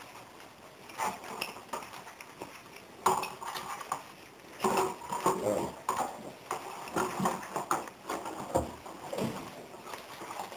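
Irregular clatter and knocks as a shoulder-mounted brush cutter and its harness are lifted and handled, with metal parts and buckles knocking together.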